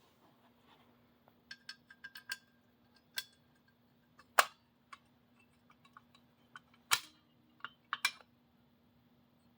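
A 1965 Honeywell W247B fire alarm control panel: a steady low electrical hum comes on at the very beginning, with sharp clicks at irregular intervals. The loudest clicks come about four and a half, seven and eight seconds in.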